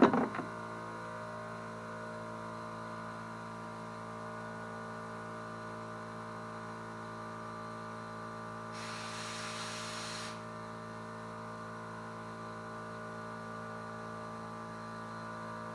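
A short burst of air hissing through the mower's detached fuel line as it is blown out, lasting about a second and a half, partway through. A steady electrical hum runs under it.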